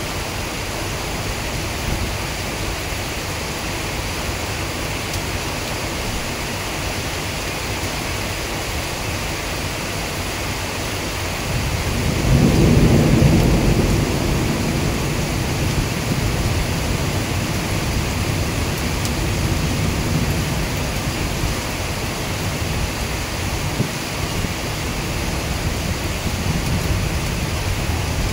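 Heavy monsoon rain falling steadily, with a long low rumble of thunder that swells about twelve seconds in and fades slowly.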